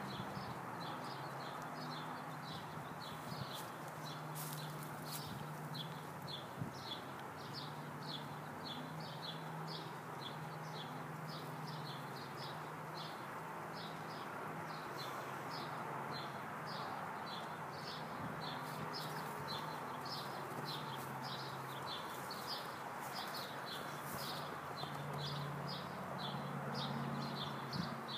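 A bird chirping over and over, short high chirps about two to three a second without a break, over a steady low hum.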